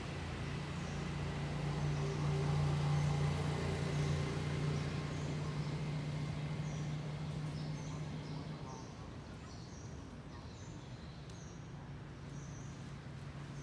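A steady low engine-like hum that grows louder over the first few seconds and fades after about eight seconds, as of a motor vehicle passing. Short, high chirps repeat through the second half.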